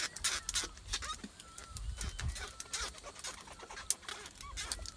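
Birds chirping with short curved calls, over scattered clicks and knocks of fishing line and gear being handled in a boat.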